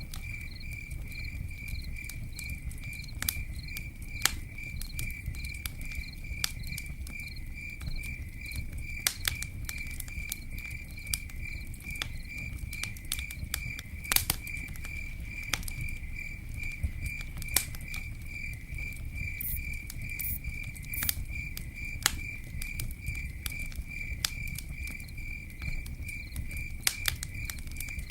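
Campfire crackling, with irregular sharp pops and snaps over a low steady rumble. Throughout, an insect chirps in an even high-pitched rhythm a few times a second.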